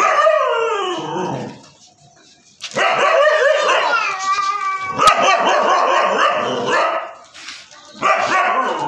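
Siberian husky barking and howling in drawn-out, pitch-bending calls. A falling howl opens, a long run of calls follows, and another burst comes near the end. A single sharp click sounds about five seconds in.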